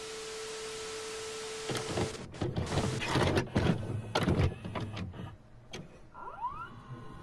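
Television static hiss with a steady tone, cut off about two seconds in. Then a run of clunks and clicks from a VCR mechanism and a short rising whir of its motor as the tape starts to play.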